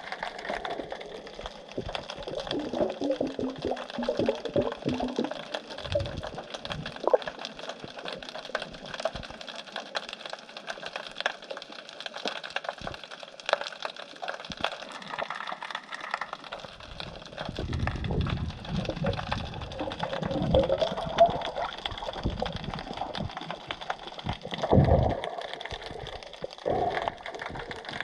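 Underwater sea sound picked up by a submerged camera: a dense, continuous crackling of tiny clicks, with swishes of moving water that swell louder about two-thirds of the way through and again near the end.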